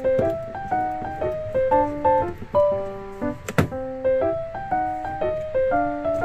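Background music: a light melody of short keyboard notes in a steady rhythm, with a single sharp click about halfway through.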